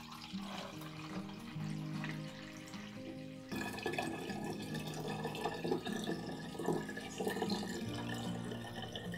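Apple vinegar being poured in a stream into a glass bottle, trickling and frothing as it fills, with the pouring much louder from about three and a half seconds in. Background music plays under it.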